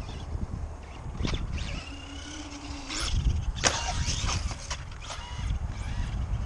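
Brushless-motor 2WD Traxxas Stampede RC truck driving in short bursts on concrete: brief motor whines about two to three seconds in, and sharp knocks and clicks, the loudest a little before the middle. Wind rumbles on the microphone underneath.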